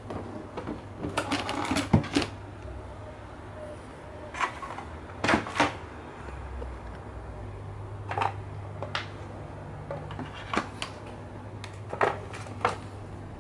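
Bagged plastic LEGO bricks and their packaging being handled: scattered short clicks and light rattles, a cluster in the first couple of seconds and single ones after, over a low steady hum.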